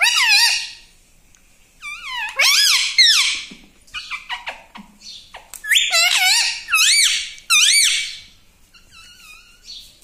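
Indian ringneck parakeet giving loud, high calls in three bursts, each note rising and falling in pitch, with fainter calls near the end.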